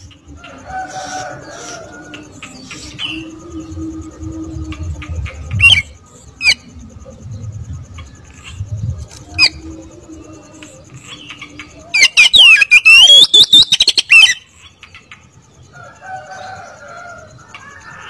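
Caged oriental magpie-robin (kacer) singing: scattered whistled and chirping notes with a few sharp, loud calls. About twelve seconds in comes roughly two seconds of loud, rapid, rattling notes, the fast 'roll tembak' burst that kacer keepers prize.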